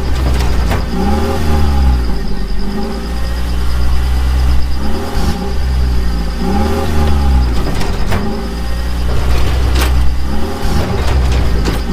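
Engine-revving sound that rises and falls in pitch in the same cycle about every three seconds, over a steady low rumble.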